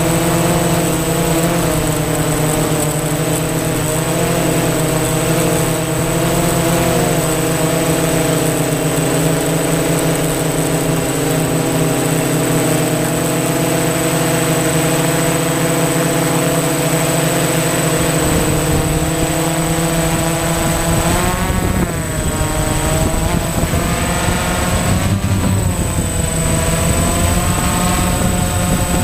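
DJI Phantom FC40 quadcopter's motors and propellers whining steadily in flight, with a thin high-pitched steady tone above them. Near the end the pitch swells up and settles back twice as the motors speed up during a turn.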